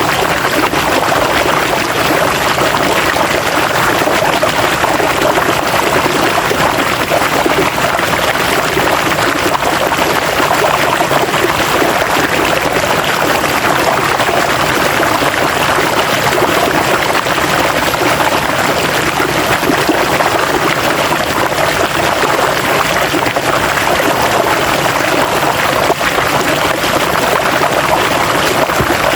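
River water flowing steadily over rocks, a continuous rushing and splashing with no change.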